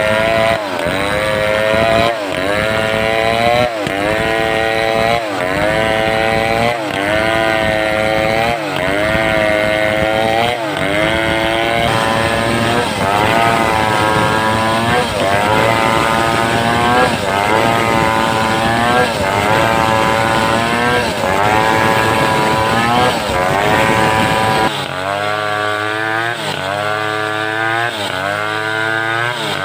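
Home-built two-stroke chainsaw running at high revs while cutting through a mindi log. Its engine note dips and recovers again and again, about every one and a half seconds, as it loads in the cut. The sound changes abruptly about 25 seconds in.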